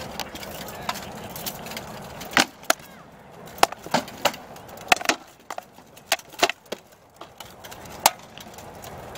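Rattan swords striking shields and armour in a close exchange of blows: about a dozen sharp wooden knocks and clacks in quick clusters, starting about two seconds in, with a last single hit about eight seconds in.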